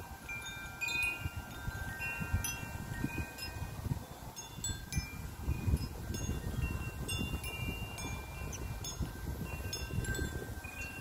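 Wind chimes ringing at irregular moments, several different notes that each sound sharply and then ring on, as the breeze moves them.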